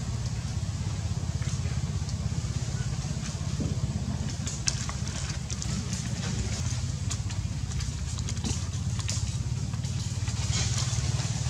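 A motor engine running steadily at a low, even pitch, with scattered sharp clicks and crackles of dry leaf thatch as monkeys move over it.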